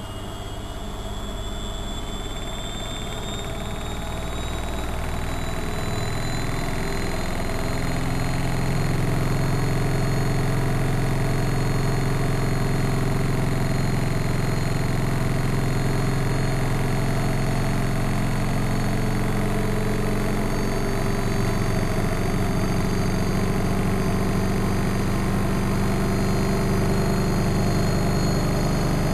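Studio WM26AAA washing machine with its drum spinning up: a low hum and motor whine build over the first eight seconds or so, then hold steady while the whine keeps rising slowly in pitch.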